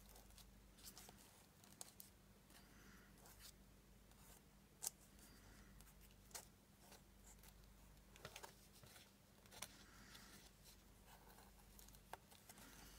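Near silence: faint, scattered clicks and light rustling of paper and craft materials being handled, over a low steady hum.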